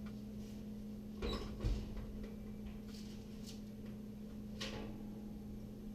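A few light knocks and scrapes as a metal baking tray of cookies is handled at the oven, over a steady low hum.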